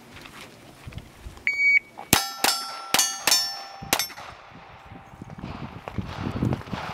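Electronic shot-timer beep, then five quick pistol shots in about two seconds, each followed by the ring of a struck steel target plate.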